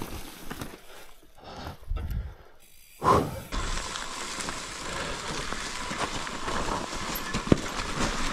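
Mountain bike tyres rolling fast down a dry, leaf-covered forest trail, a steady rush of tyre and wind noise with rattling from the bike. The sound dips briefly, then a sudden loud hit with a falling tone comes about three seconds in, and a sharp click comes near the end.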